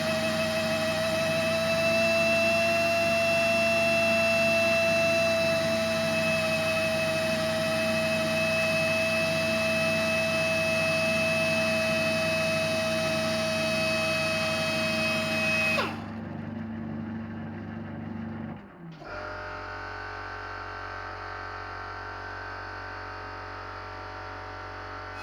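Lathe-mounted hand grinder running with a steady high whine while grinding the cone on a centre drill. About 16 seconds in the whine cuts off suddenly, leaving a quieter steady machine hum.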